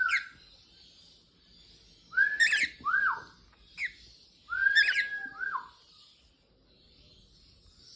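Cockatiel whistling in three short phrases, each a clear note gliding up and held, followed by a falling arched note, with sharp high chirps mixed in.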